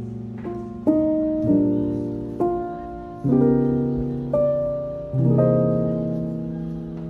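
Background music: slow, gentle piano, with single notes and chords struck about once a second and left to ring and fade.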